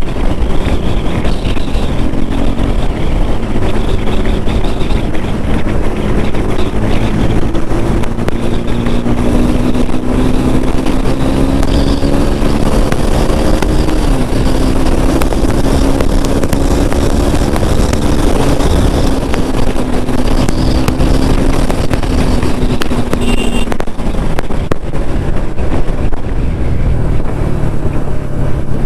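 KTM RC 390 single-cylinder engine running at highway speed under heavy wind rush. Its note climbs steadily through the middle, dips briefly partway up, then drops away about five seconds before the end.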